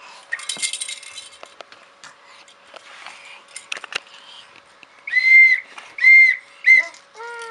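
A baby's high, whistle-like squeals: three short, loud piping notes about five to seven seconds in, followed by a falling coo. A brief rattling comes near the start.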